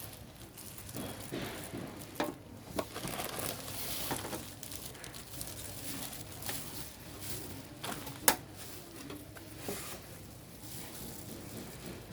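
Packaging and accessories being handled: plastic rustling and crinkling with scattered light clicks, and one sharp knock about eight seconds in.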